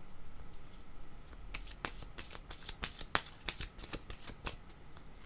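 Tarot cards being shuffled by hand: a rapid run of sharp card clicks, many per second, starting about a second and a half in.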